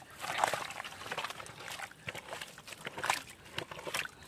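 Bare hands digging and scooping wet mud in a hole in the ground, giving irregular wet scooping and sloshing sounds.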